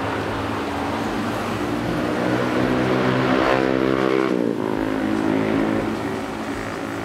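A motor vehicle passes close by on the street, its engine rising in pitch and loudness as it approaches and dropping sharply in pitch as it goes past about four and a half seconds in.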